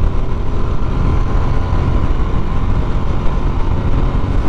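TVS Apache RTR 160 motorcycle's single-cylinder engine running steadily while riding, under steady wind noise on the microphone.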